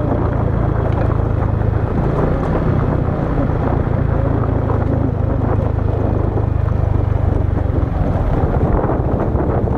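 A vehicle engine running steadily under loud wind buffeting on the microphone.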